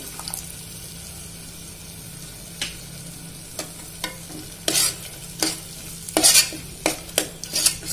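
A metal ladle scraping and knocking against the inside of a pressure cooker as yogurt is stirred into frying masala. A low, steady sizzle runs under it, and sharp scrapes start about two and a half seconds in, coming quicker near the end.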